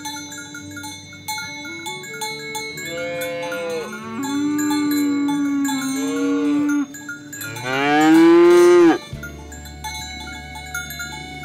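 Cattle mooing several times over light background music with glockenspiel-like notes; the last moo, about eight seconds in, is the loudest, a long call that rises and falls in pitch.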